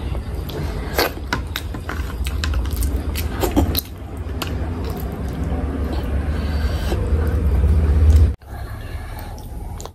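Close-miked eating of fish curry and rice: wet mouth clicks and smacks over a loud low rumble that builds, then cuts off suddenly about eight seconds in, with softer eating sounds after.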